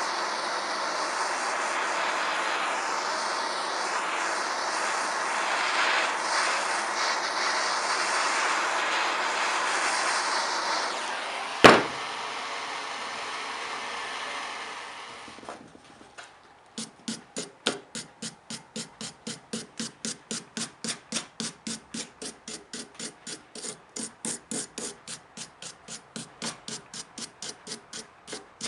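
Venturi propane forge burner running with a steady roar, broken by one sharp, loud clang just before halfway. The roar fades out, and about a second later hammer blows on hot steel begin, evenly paced at about three a second.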